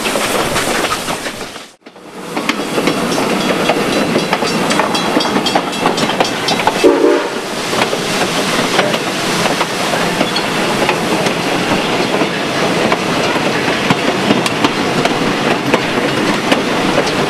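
Steam-hauled passenger train rolling along the track, heard from aboard: a steady loud clatter of wheels on rail with rapid clicks. The sound drops out briefly about two seconds in, and a short tonal sound comes about seven seconds in.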